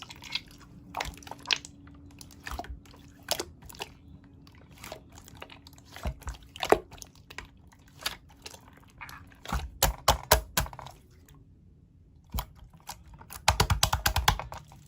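Slime being squished and worked by hand, making irregular clicking and popping crackles, with two dense runs of them about ten seconds in and near the end.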